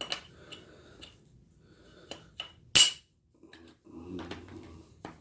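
Steel parts of an AR-style rifle upper clicking and clacking together as the bolt carrier and charging handle are handled and fitted, with one sharp, ringing metallic clack about three seconds in.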